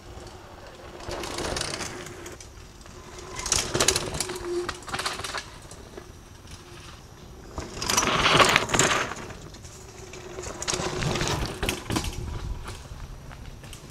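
Mountain bike going by on dirt singletrack: tyres rolling and scrabbling over packed dirt and roots, with the rapid ratcheting buzz of the rear freehub as the rider coasts. It swells and fades several times as the bike passes close, loudest about eight seconds in.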